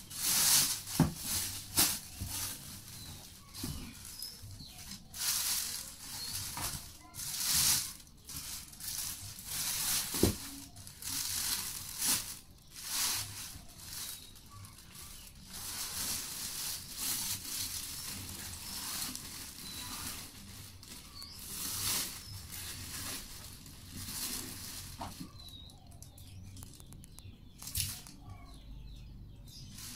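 Plastic packaging rustling and crinkling in irregular bursts as it is handled and pulled away, with a few knocks among it. It goes quieter near the end.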